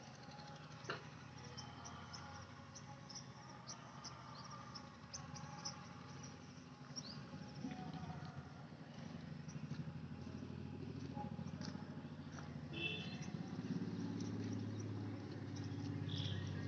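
Outdoor ambience: many short, high chirps from birds and insects over a low rumble that grows louder through the second half.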